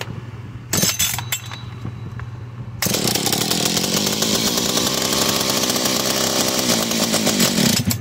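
Old Jonsered two-stroke chainsaw engine catching about three seconds in and running fast and evenly, then winding down near the end. A few sharp knocks come before it starts.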